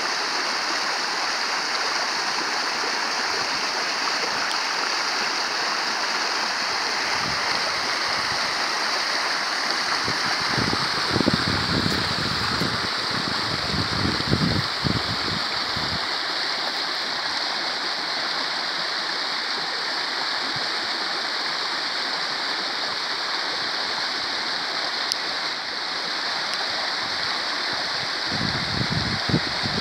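Sewage pouring with great force from an outfall into a stream: a steady rush of churning water. Low rumbling buffets come through about ten to fifteen seconds in and again near the end.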